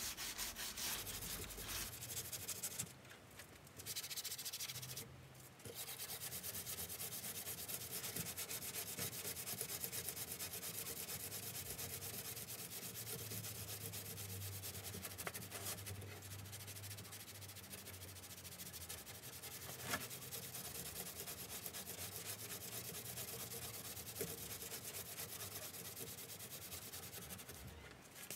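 180-grit sandpaper on a hand block rubbed quickly back and forth over dried body filler on a classic Mini's rear body panel: a steady rasping with two brief pauses a few seconds in and one sharp tick about two-thirds through.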